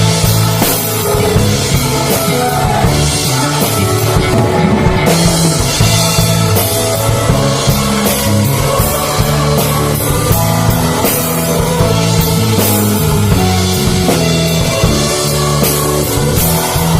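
Live church worship music: a band plays a hymn loudly and without a break.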